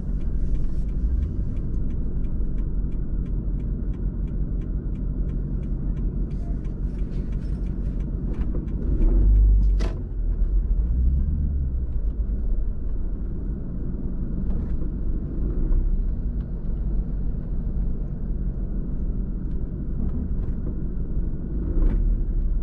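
Steady low rumble of a car driving slowly, heard from inside the cabin, with a faint regular ticking in the first few seconds. A louder bump with a sharp click comes about ten seconds in.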